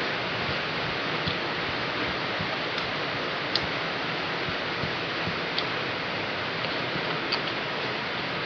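Heavy rain falling steadily, with a few faint sharp clicks scattered through it.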